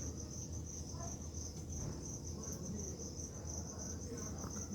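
Steady high-pitched trill of crickets in the background, with a faint low hum underneath.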